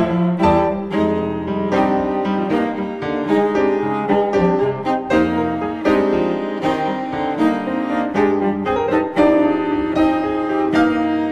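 Music: a cello or other bowed string instrument playing a melody over piano, with a steady stream of distinct notes.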